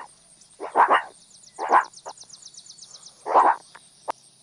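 Meerkat giving a handful of short calls spread irregularly, one of them a quick double call. A fast run of high ticks sounds behind the calls in the middle, and a single sharp click comes near the end.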